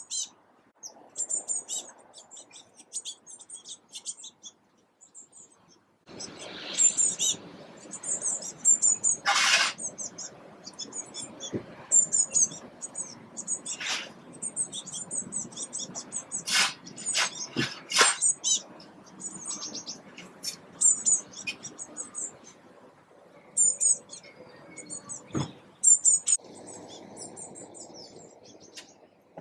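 Blue tit chicks begging from a nest box: quick series of very high, thin chirps, repeated in bursts again and again, with a few short sharp noises between about nine and eighteen seconds in. A low background rush comes in about six seconds in.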